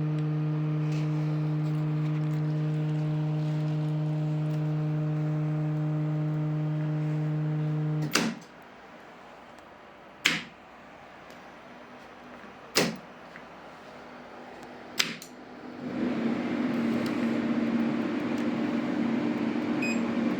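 A repaired 2000-watt power supply under test hums steadily, then cuts off with a sharp click about eight seconds in. Three more single sharp clicks, like a relay switching, follow at about two-second gaps. About sixteen seconds in, a whirring cooling-fan-like noise with a low hum starts up and keeps running.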